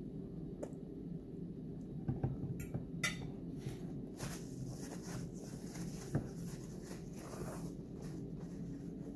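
Paper napkin rustling and crinkling as it is handled and rubbed over greasy hands, after a few sharp clicks, over a steady low hum.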